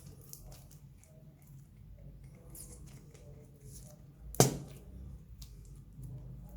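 Slime being handled and squished, with small scattered crackles and clicks, and one loud sharp pop about four and a half seconds in.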